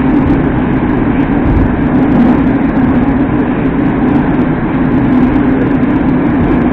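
Moskva-2019 metro train running at speed, heard from inside the car: a loud, steady running rumble with a low, steady hum over it.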